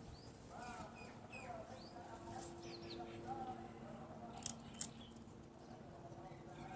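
Small birds chirping faintly in short, falling chirps, with two sharp clicks about four and a half seconds in.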